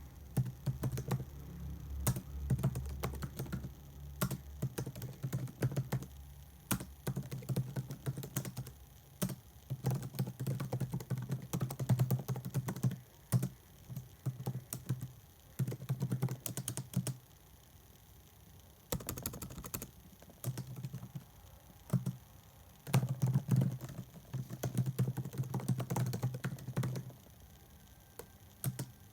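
Typing on a computer keyboard: quick runs of key clicks and thuds, broken now and then by short pauses.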